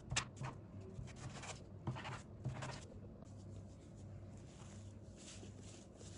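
Hands pulling apart and handling soft, floured yeast dough on a wooden table, dividing it into pieces. Soft brushing and pressing sounds come several times in the first three seconds, then fade to faint rustling.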